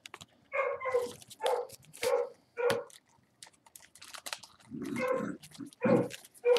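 A dog barking: a run of about five short barks roughly half a second apart, a pause of nearly two seconds, then three more.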